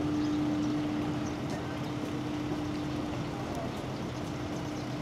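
Steady outdoor background noise with a single steady hum that fades out about three and a half seconds in.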